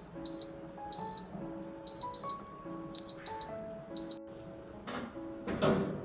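High-pitched electronic beeps from a kitchen appliance, singly or in quick pairs at uneven gaps, over background music. Near the end there is a short rush of noise.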